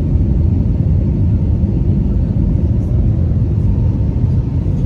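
Steady low roar of a passenger jet's engines and airflow, heard inside the cabin, with a faint steady hum above it.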